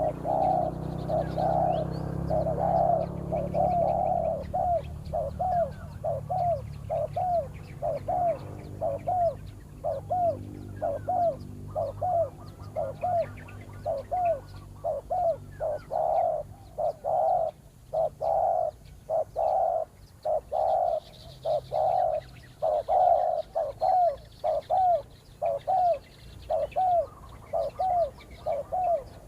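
Spotted doves cooing: a long, quick series of short coo notes, about two a second, louder in stretches. Faint chirps of small birds sit high above.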